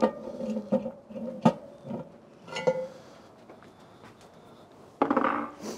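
A cast iron Dutch oven lid being set and settled with a metal lid lifter: about five metal clanks in the first three seconds, each ringing briefly. A short rush of noise follows near the end.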